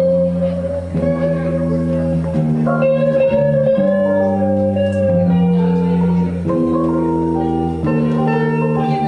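Electric guitar, a Squier Stratocaster, playing a blues lead: a long held, slightly wavering note for about five seconds, then shorter phrases. Underneath, a keyboard keeps up a bass line whose notes change about once a second.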